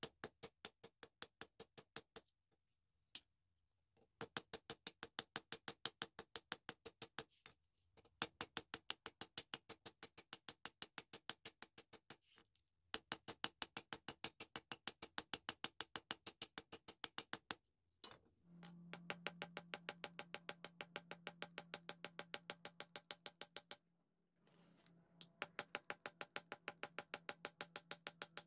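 Quiet background music: a steady clicking beat of about four or five ticks a second in phrases of a few seconds with short breaks, joined by a held low synth tone from about two-thirds of the way in until shortly before the end.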